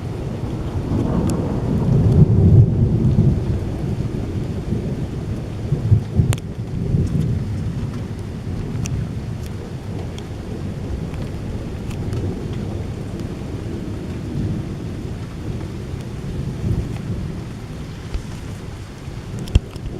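Rolling thunder from a strong thunderstorm: a long low rumble that builds to its loudest about two to three seconds in, swells again around six seconds, then dies down to a lower rumble over light rain.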